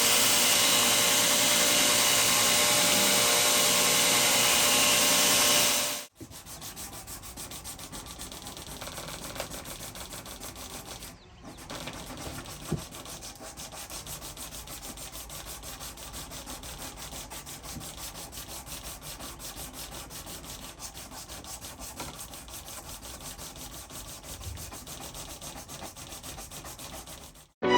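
A power tool runs steadily for about six seconds, then cuts off. It is followed by long, steady hand-sanding strokes, much quieter, with a brief pause part-way through.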